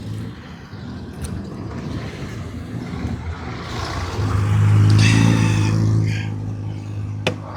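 A motor vehicle's engine passing in the street, a steady low hum that swells to its loudest about five seconds in and then eases off.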